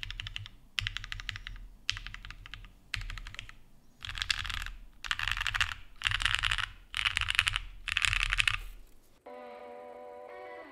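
Typing on a 7V by Gok 75% mechanical keyboard built plateless with lubed and filmed Gateron Lion linear switches and GMK keycaps: bursts of rapid keystrokes with short pauses between them, louder from about four seconds in. The typing stops near the end and music with plucked guitar starts.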